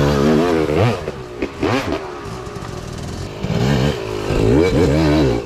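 Dirt bike engine revving up and down in repeated throttle blips, loudest near the end.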